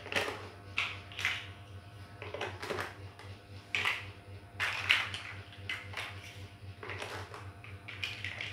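Plastic toy building bricks clicking and clattering in irregular sharp knocks as hands press bricks onto the build and rummage through a loose pile of bricks.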